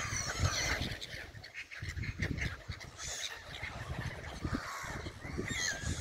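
A flock of black-headed gulls calling, with many short, harsh calls overlapping. The calls are loudest near the end, over a low rumble.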